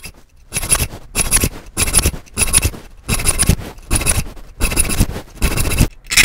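Small triangular file stroking back and forth across the steel teeth of a rip-cut hand saw clamped in a vise: a rasping metal scrape repeated about every two-thirds of a second, starting about half a second in, as each tooth is sharpened.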